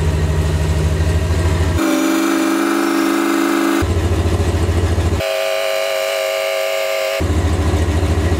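A loud truck engine rumbling, broken twice by blasts of about two seconds from a multi-tone train-style horn, the first lower-pitched and the second higher.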